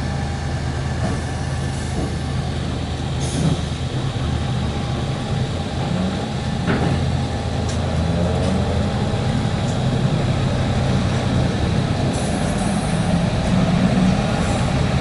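Automated car park's lift machinery running as it brings a car down: a steady low motor hum that shifts in pitch a few times, with a few sharp clanks.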